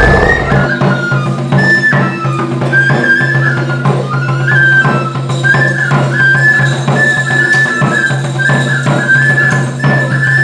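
A small folk flute and a drum play a traditional dance tune: a high flute melody stepping back and forth among a few notes over a steady drumbeat.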